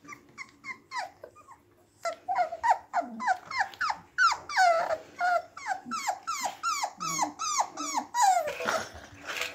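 A litter of puppies about four weeks old whining and yelping: a few faint calls, then from about two seconds in a quick run of short high calls, each falling in pitch, about three a second.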